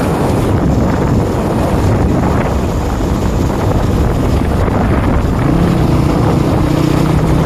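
Wind buffeting the microphone on a moving motorcycle over the drone of the engine and tyres. About five seconds in, a steady engine hum comes through the wind noise.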